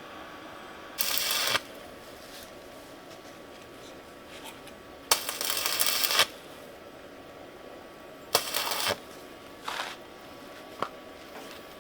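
Four short bursts of scraping noise, each starting and stopping abruptly, and a single sharp click near the end.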